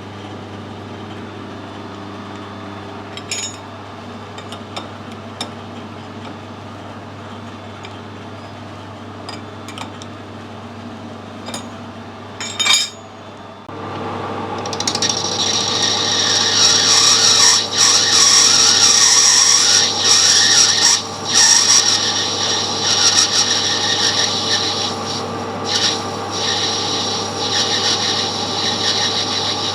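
Metal lathe running with a steady hum and a few light clicks. About fourteen seconds in, the tool starts cutting into a brass part with a loud, rough, high-pitched scraping that goes on for the rest of the time.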